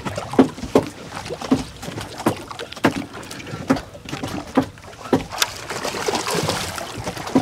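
Water lapping against a boat hull with irregular knocks, and a hooked dorado (mahi-mahi) splashing at the surface beside the boat about five seconds in.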